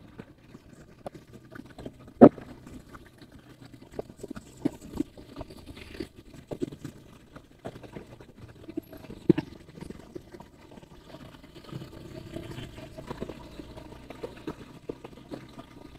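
Motorcycle riding slowly through town: a faint steady engine hum under scattered irregular knocks and rattles, with a sharp knock about two seconds in and another about nine seconds in.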